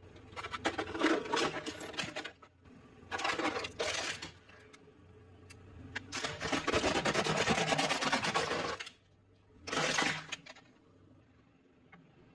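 Plastic toy motorcycle crackling and snapping as a car tyre rolls onto it and crushes it, in four bursts of cracking, the third and longest lasting about two and a half seconds.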